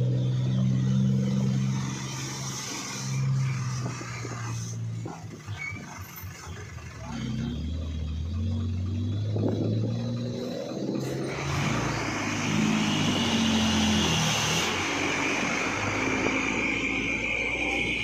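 Diesel engine of a Hino Ranger cargo truck running at low revs as the truck creeps along. About halfway through, a broad rushing noise grows louder and holds.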